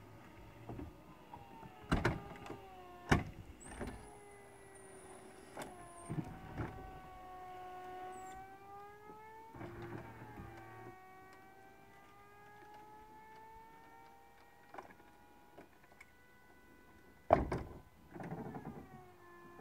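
VW Eos folding hardtop opening on its electro-hydraulic drive: a steady pump whine whose pitch slides slowly up and down as the roof panels and trunk lid move. Mechanical clunks come about two and three seconds in, and a louder double clunk comes near the end.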